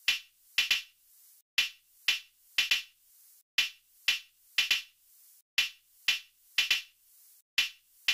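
Stripped-down electronic beat from a drum-pad app: only short, sharp, clicky percussion hits with no bass, in a pattern of a single hit followed by a quick double hit, repeating about every two seconds.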